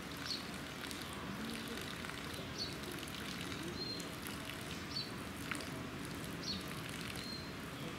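Outdoor ambience: a steady background hiss with short, high bird chirps and brief whistled notes every second or two.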